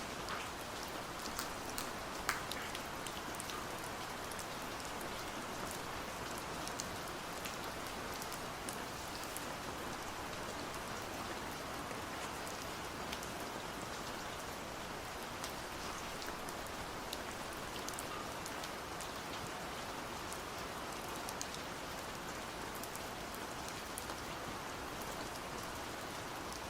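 Steady rain falling, with individual drops tapping sharply all through and one louder drop about two seconds in.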